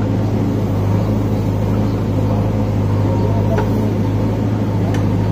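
Diesel engine of a JCB backhoe loader running steadily under load as it works its bucket loading wheat, a constant low drone with a few faint knocks.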